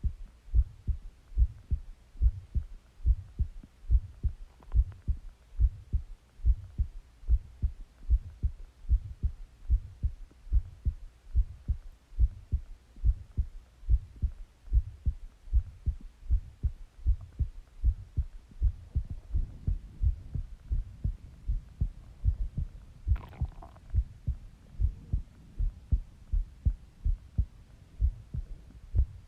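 A person's heartbeat heard close up: steady, regular low thumps throughout. About two-thirds through a faint rushing haze rises under the beats, and about three-quarters through there is a brief higher-pitched sound.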